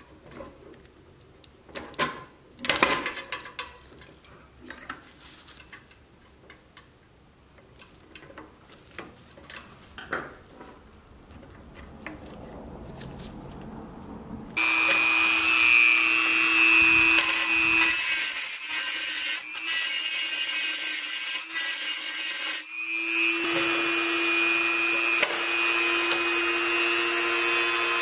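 Small metal clicks and taps as a screwdriver pries at the hub of a toy truck's wheel and the wheel parts come off. About halfway through, a small electric power tool starts abruptly and runs steadily at a constant pitch. It stops for a moment near the end and starts again.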